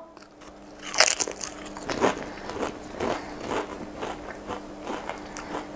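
A stacked potato crisp (Pringles Flame Spicy BBQ) is bitten with one sharp snap about a second in, then chewed in a run of crunches at about two a second.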